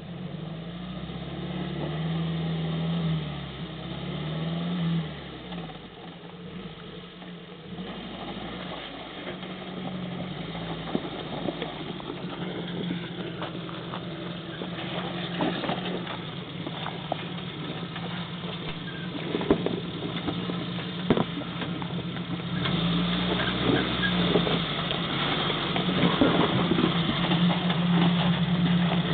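Suzuki Sidekick 4x4's four-cylinder engine revving up and down a few times, then pulling steadily under load while crawling over an off-road obstacle, with scattered sharp knocks and clunks. The engine gets louder near the end.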